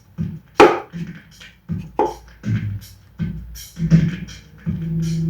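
Background music: a drum-led rhythm of sharp percussive hits with no singing, joined near the end by a held low note.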